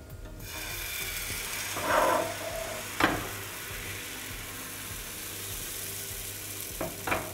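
Thin blini batter sizzling as it is poured from a ladle into a hot, lightly oiled frying pan and swirled, a steady hiss that swells about two seconds in. A sharp knock comes about three seconds in, and a couple of light clicks near the end.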